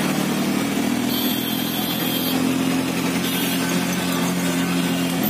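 Engine of a moving three-wheeler auto-rickshaw running steadily with an even hum, heard from inside the passenger cabin in city traffic.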